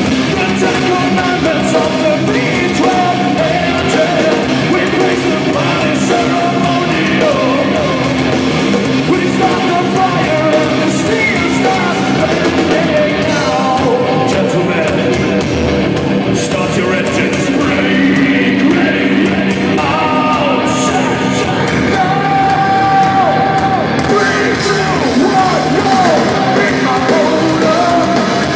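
Live hard rock band playing loud and steady: electric guitars, bass guitar and a drum kit under a singer's half-shouted vocals. It is heard through a phone microphone in the crowd, echoing in a large hall.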